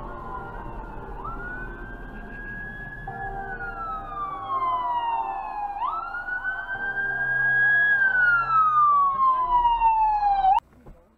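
Fire engine siren wailing: each cycle climbs quickly in pitch, holds, then falls slowly, twice over, growing louder as the truck approaches, before cutting off suddenly near the end.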